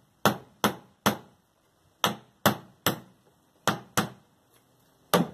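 Claw hammer driving nails into a wooden plank of a column form box: about nine sharp strikes in quick groups of three, three, two, then one, with short pauses between the groups.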